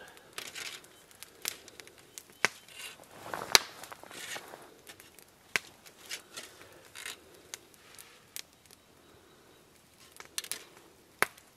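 Aluminum foil crinkling and rustling, with scattered sharp clicks and taps from small spice bottles being handled and shaken over it, in an irregular pattern.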